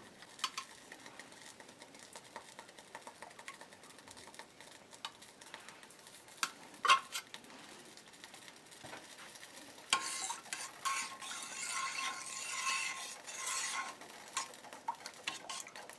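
Light clicks and clinks of a metal spoon against a pot, then about four seconds of steady scraping and stirring with a faint metallic ring, as condensed milk is added to evaporated milk and water.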